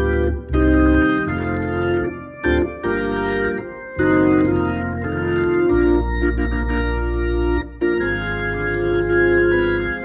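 Hammond B3 organ played through a Leslie 122 rotary speaker: held chords over deep bass notes, with short breaks between phrases.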